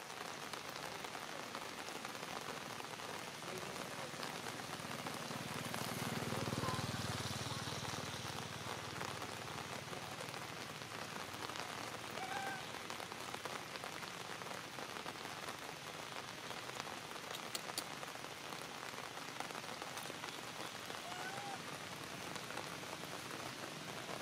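Steady hiss of rain falling, with a low rumble that swells and fades about six seconds in and a few faint short chirps later on.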